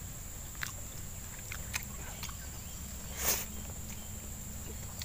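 A man eating with his fingers: a few scattered short chewing and lip-smacking sounds, one louder smack a little past three seconds in, over a steady low outdoor rumble.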